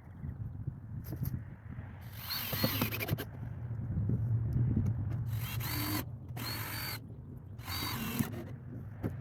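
Handheld power drill running in four short bursts of about half a second to a second each, its motor whining.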